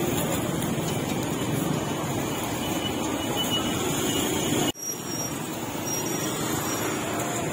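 Steady street noise of passing traffic and motorbikes, broken by a sudden momentary dropout about two-thirds of the way through.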